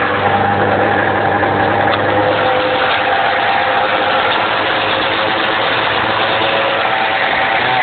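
1995 Arctic Cat Cougar 550 snowmobile's two-stroke twin engine idling steadily.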